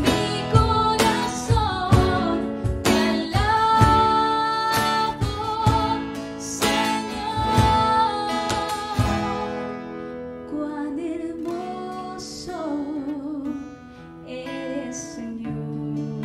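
A woman singing to two strummed acoustic guitars, with a hand drum beating steadily under them. The drum drops out about nine seconds in, leaving the guitars and voice.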